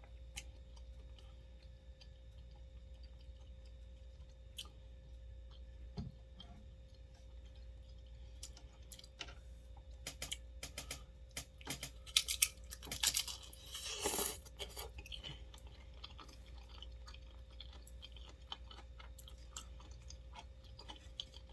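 A person crunching and chewing crisp fried wonton chips loaded with dip. Scattered small crunches and mouth clicks run throughout, with a louder run of crunching bites about twelve to fifteen seconds in.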